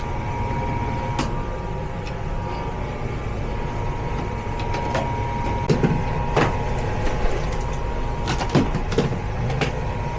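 Furnace running steadily in heat mode, a low drone with a thin steady whine, though the thermostat is set to cool: the tech traces this to a faulty thermostat calling for heat. Scattered sharp clicks and knocks sound over it, several of them in the second half.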